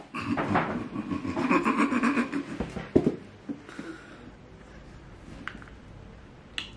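Handling noise: rustling and light knocks as a pair of flats is moved about, with one sharper knock about three seconds in.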